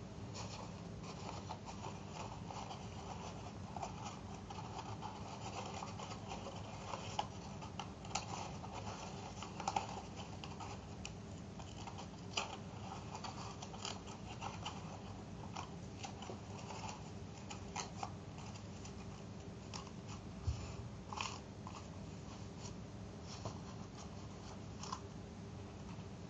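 Paper being folded and handled, with scattered crinkles and light taps as creases are pressed down, over a steady low background hum.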